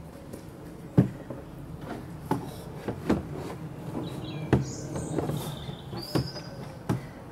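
A series of sharp knocks or taps at irregular intervals, about seven in all, the loudest about a second in. Small birds give a few short high chirps about two-thirds of the way through.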